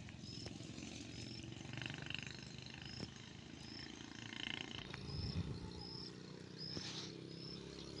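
Rustling of grass and handling noise, with a faint high chirp repeating evenly about every two-thirds of a second and a low thump about five seconds in.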